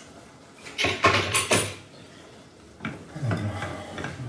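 Kitchen utensils clattering and scraping against cookware, loudest in a brief burst of knocks about a second in, with lighter scraping later.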